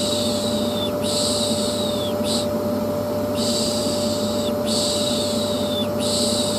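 Vacuum cleaner running steadily with a constant humming tone, under rhythmic 'shh' shushing that repeats in hissing strokes about once a second with short breaks between them. The combination is used as white noise to soothe a colicky baby to sleep.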